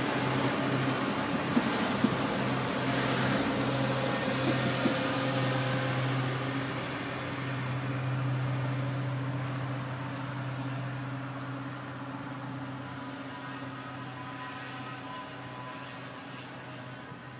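A PESA diesel multiple unit runs past and pulls away, its diesel engine a steady drone with a few sharp clicks in the first few seconds. The drone fades after about eight seconds as the train draws off into the distance.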